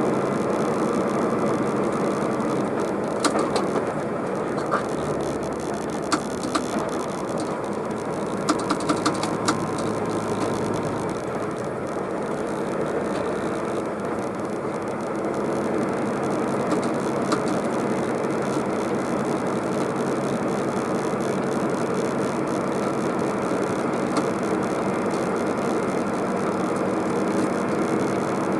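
Tractor-trailer's diesel engine and tyre noise heard from inside the cab while cruising, a steady drone, with a few sharp clicks about 3 to 4 seconds in and again around 9 seconds.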